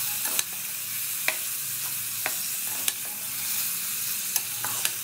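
Chicken, onions and masala paste sizzling in ghee and oil in an open aluminium pressure cooker, stirred with a wooden spatula that knocks sharply against the pot now and then.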